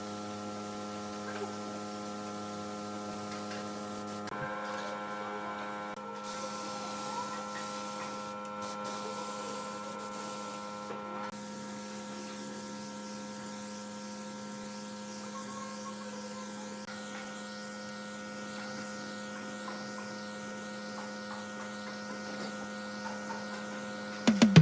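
Steady electrical hum with several faint steady tones above it, some of which come and go every few seconds.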